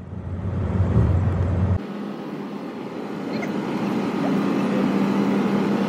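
Vehicle engine and road noise, a steady hum; the sound changes abruptly about two seconds in.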